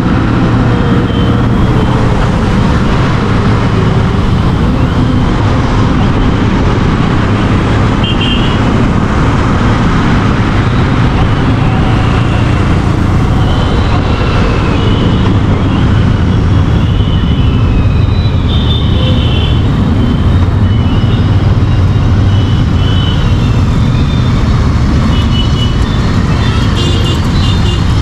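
Royal Enfield Interceptor 650's parallel-twin engine running steadily while riding through traffic, with surrounding road traffic noise and a few brief high tones.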